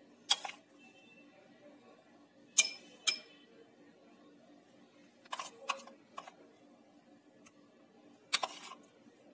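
A metal spoon clinking against small glass tumblers as mango pulp is spooned into them: about seven sharp clinks at irregular intervals, a few with a brief glassy ring.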